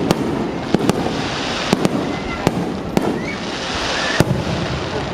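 Aerial fireworks going off: a string of sharp bangs from bursting shells, some in quick pairs, over a continuous crackling hiss.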